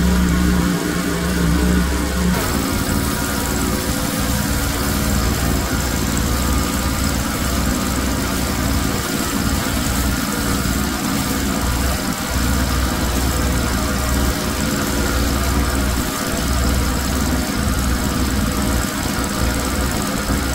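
Pressure washer running, its engine giving a steady low drone, with the hiss of the high-pressure water jet spraying onto a rug. About two seconds in, the spray starts and the hiss grows over the engine.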